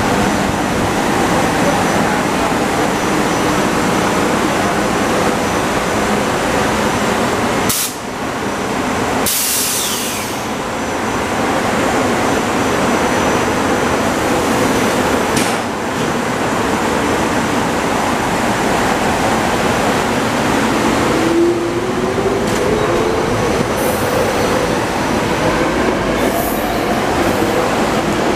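SEPTA Silverliner IV electric commuter train pulling out of the station and passing close by: a steady rumble and rattle of wheels and cars going past, with a few brief sharp noises. A whine rising in pitch comes in about three-quarters of the way through as the train gathers speed.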